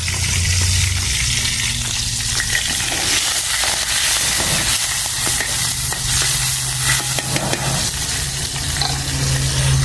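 Fatty pork frying in oil with chili and Sichuan pepper, sizzling steadily, with scattered clicks of the pan being stirred.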